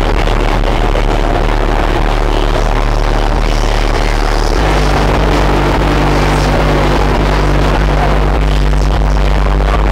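Car audio system in a sedan's trunk playing bass-heavy music at high volume: a held low bass note that switches to a different low note about four and a half seconds in.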